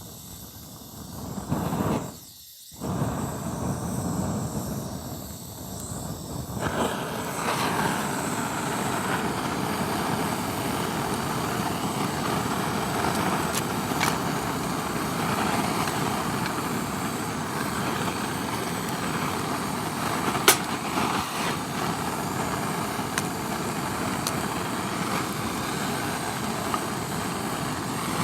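Wood campfire burning with a steady rushing hiss, broken by a few sharp pops of the firewood. The first few seconds are duller, with a brief dropout about two seconds in.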